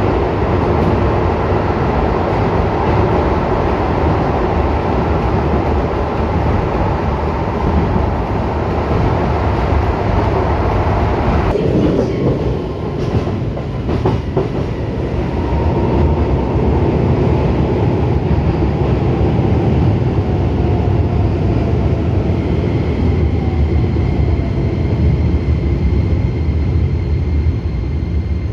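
Keisei 3000-series commuter train heard from inside the car: a steady rumble of wheels on rail, with a few clacks about halfway through. After that the traction motors' whine falls steadily in pitch as the train brakes to a stop at a station.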